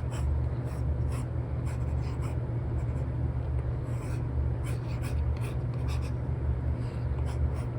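Apple Pencil with an Elecom nib drawing on a paper-like film over an iPad screen: many short, irregular scratchy strokes, with a steady low hum underneath.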